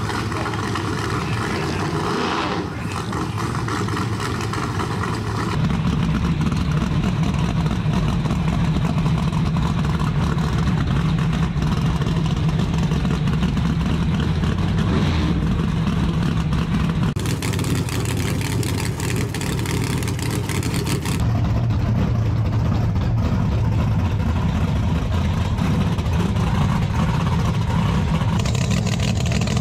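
Drag race cars' engines, a twin-turbo Mustang and a '55 Chevy, running loud on the starting line. The sound changes abruptly several times as the shots are cut together.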